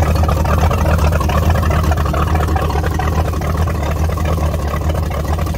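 A 1986 Ski Supreme's 351 Windsor Ford small-block V8 idling steadily on its trailer, its wet exhaust spraying water onto the ground under the transom.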